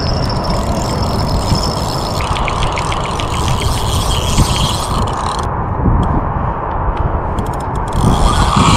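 Wind buffeting the microphone, with the ticking and whirring of a spinning reel being cranked against a hooked fish; a quick run of ticks comes about two seconds in, and a burst of clicks near the end.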